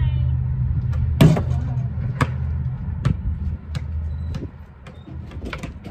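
A basketball shot hits the hoop with a loud sharp impact about a second in, then the ball bounces repeatedly on the asphalt, a sharp knock every half second to a second. A steady low engine-like hum runs underneath and weakens after about three and a half seconds.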